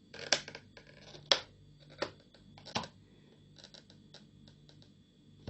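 Soldering iron tip scratching short hatching lines into a thin plastic soft-drink bottle: four short scratchy strokes under a second apart, then fainter quick ticks. The tip is drawn lightly so it marks the plastic without melting through.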